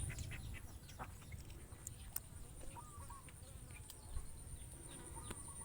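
Quiet background with faint distant bird calls and a few soft clicks; the song being loaded does not play.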